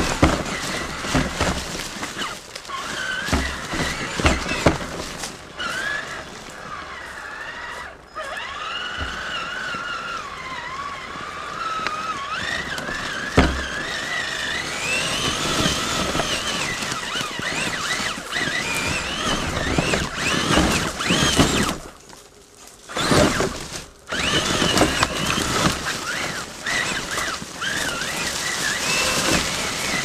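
Traxxas Summit RC truck's electric motor and drivetrain whining up and down with the throttle, recorded on the truck itself. Knocks and clatter come from the tyres and chassis hitting rocks, with a sharp knock about halfway through. The whine briefly cuts out twice near three-quarters of the way.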